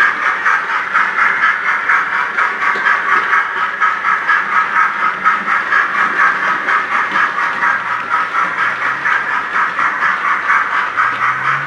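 Model railway train running along the track, a steady rushing noise that pulses evenly about three times a second.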